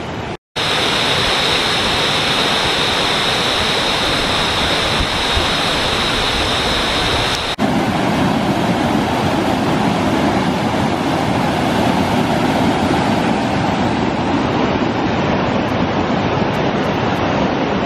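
Mountain stream swollen with snowmelt, rushing loudly and steadily over boulders. In the first half a thin, steady high hiss lies over the rush. A cut about seven and a half seconds in shifts it to a deeper, fuller whitewater rush.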